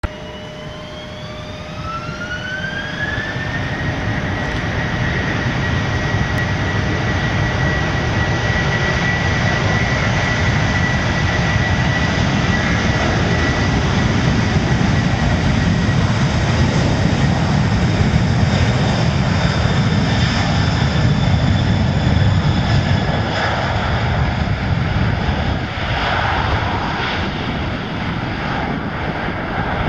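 Airbus A330's twin jet engines spooling up to high thrust for the takeoff roll: a whine rising in pitch over the first few seconds, then holding steady over a heavy rumble that grows louder as the airliner accelerates down the runway.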